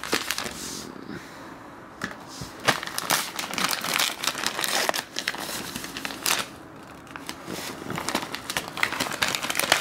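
White paper mailing envelope being pulled and torn open by hand: irregular crinkling, crackling and tearing of paper, busiest from about two seconds in.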